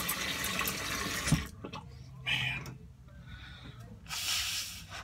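Tap water running into a sink, shut off with a short knock about a second and a half in. Then a cloth towel rubbing over a face in a few short rustles, the longest near the end.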